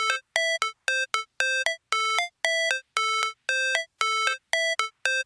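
Electronic music intro: a clean synthesized two-note figure, each short note stepping up in pitch, repeated about twice a second with silent gaps between.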